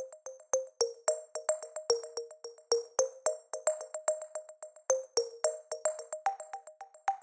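Background music: a light electronic track of short, quickly fading notes over a ticking beat, at a brisk, even pace.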